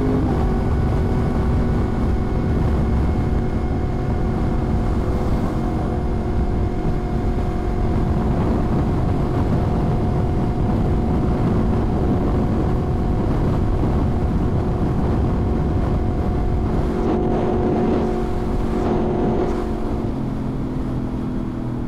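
Yamaha R1 sportbike's inline-four engine running at a steady speed while cruising, its engine note held at one pitch over a dense rush of road and wind noise. The engine eases off a little near the end.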